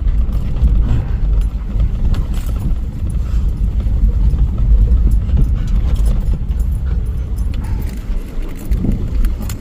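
Vehicle driving over rough ground: a steady low rumble with irregular knocks and rattles.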